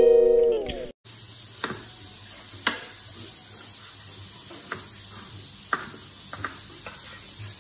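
Guitar music that stops about a second in, then a kitchen knife cutting garlic on a wooden chopping board in about seven sharp, irregularly spaced taps. Under the taps runs a steady sizzling hiss from a wok of dried chillies in oil and soy sauce over a gas flame.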